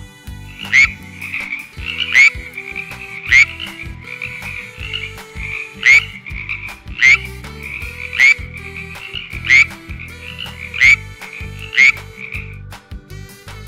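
Tree frog calling: a continuous trilling chorus with nine loud, sharp croaks standing out over it, roughly one a second with one longer gap, stopping shortly before the end.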